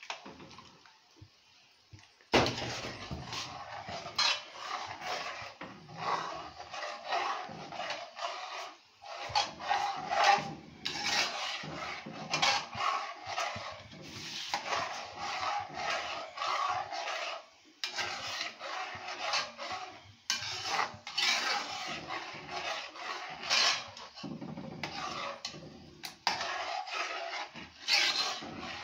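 Metal spoon stirring thick oats porridge in an aluminium pot, scraping and rubbing against the bottom and sides in an uneven run of strokes with small knocks. It starts suddenly about two seconds in.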